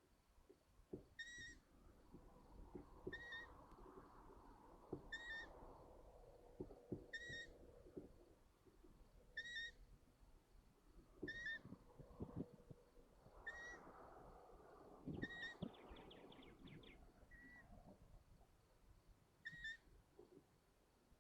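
Long-eared owl young giving their squeaky begging call, a short high call repeated about every two seconds, about ten times. Soft knocks and scuffling from the nest come between the calls.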